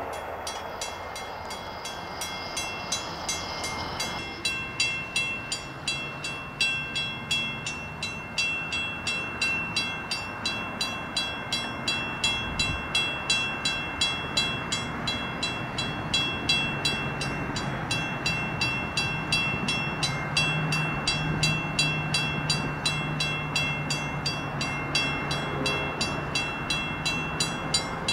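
Railroad grade-crossing bell ringing at about two strikes a second, with a low rumble of an approaching train growing beneath it. The first notes of a train horn come in right at the end.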